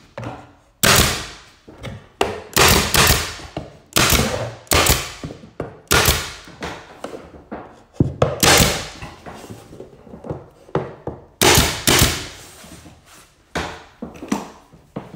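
Porter-Cable nail gun firing nails into mitered crown molding at a ceiling corner: about a dozen sharp shots at irregular spacing, some in quick pairs, each with a short fading tail.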